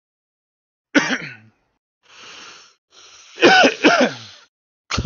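A person coughing and clearing their throat: a sharp cough about a second in, a breath, then a longer two-part throat-clearing, and another sudden cough at the end.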